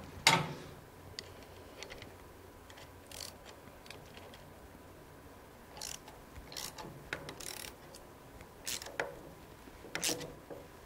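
Ratchet wrench clicking in short bursts as it turns a bearing puller's screw, drawing a worn ball bearing off a lathe's gear selector shaft. A single sharp metal clack just after the start is the loudest sound.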